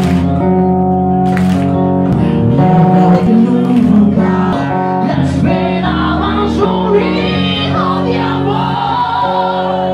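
Live band playing a song: an amplified acoustic guitar holds chords while a male vocalist sings over it.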